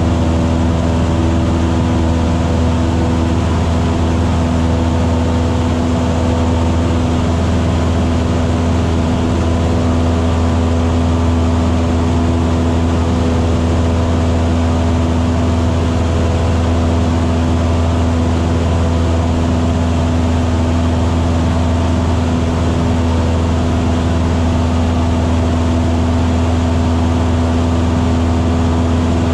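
Single-engine light aircraft's piston engine and propeller running steadily in flight: a constant low drone with a steady hum above it, unchanging in pitch or loudness.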